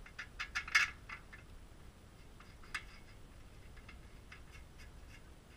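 Light clicks and taps from hands working on the roller shutter's slats and fittings: several in quick succession in the first second, one more near the three-second mark, then faint scattered ticks.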